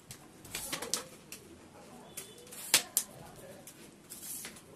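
Clicks and knocks of a metal tripod stand being handled and adjusted, its legs and head tilted and set: a few sharp clicks about a second in, near three seconds and again past four seconds.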